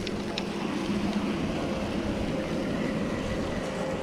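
Steady rush of wind and rolling noise from a mountain bike being ridden, heard through a chest-mounted action camera, with a couple of light clicks near the start.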